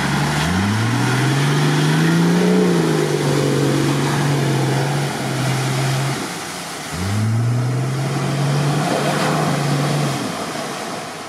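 Toyota Land Cruiser 80 engine revving hard as it pushes through deep mud and water, with the splash of mud and water. The engine note climbs about half a second in, holds, eases off, then climbs again about seven seconds in before fading away.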